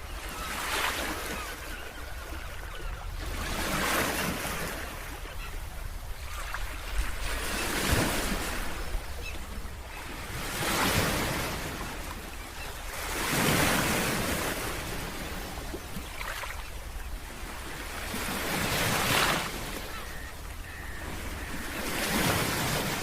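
Ocean surf: waves breaking in repeated surges every few seconds, each swelling and fading away, over a steady low rumble.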